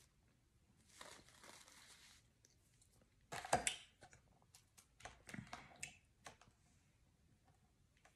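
Faint close-miked eating and food-handling sounds: soft crinkling and tearing, one louder rustle about three and a half seconds in, then a run of small clicks.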